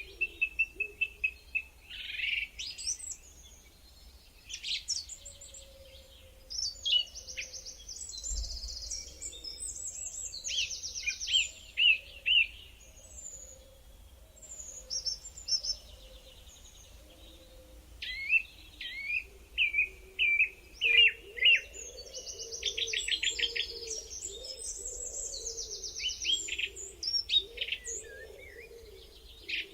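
Several songbirds singing and calling: chirps, whistled notes and fast trills, overlapping and coming in bursts of song a second or two long with short pauses between.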